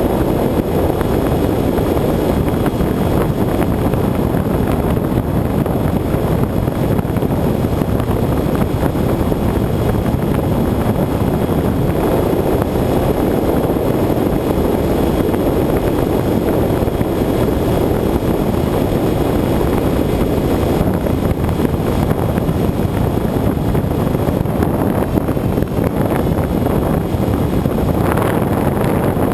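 Steady rushing noise of air over a camera mounted on a Bixler electric foam RC plane in flight, mixed with the drone of its electric motor and propeller.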